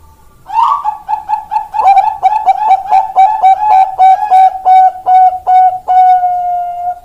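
Zebra dove (Thai-bred perkutut bangkok) singing: a run of quick, clipped coos, about three or four a second, starting about half a second in and ending on a longer held note.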